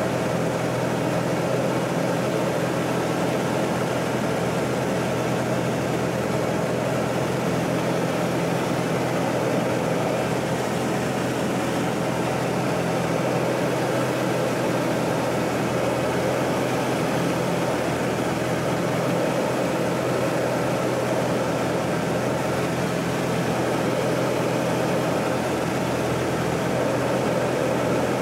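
Steady drone of a Pitts biplane's piston engine and propeller in cruise flight, heard from inside the cockpit.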